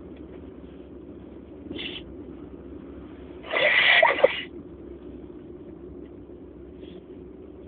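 A person sneezing once, loudly, about three and a half seconds in, during an allergy sneezing fit; a short, quieter sound comes about two seconds in. A steady low hum runs underneath.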